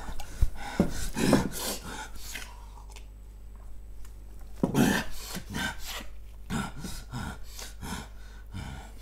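Water poured from a glass jug into a drinking glass, then a man breathing hard and gulping the water down, in short irregular bursts of sound.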